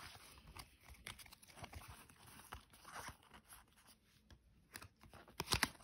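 Panini Adrenalyn XL trading cards being flipped through by hand, the card stock sliding and flicking against each other in a run of small clicks and scrapes, with a louder cluster of flicks near the end.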